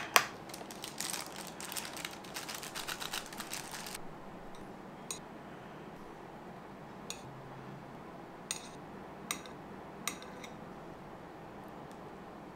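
A metal spoon stirring a thick mayonnaise sauce in a small glass bowl, a rapid run of light clicks against the glass that stops about four seconds in. After that, about five separate sharp clicks a second or so apart, as metal chopsticks set sushi slices down on a plate.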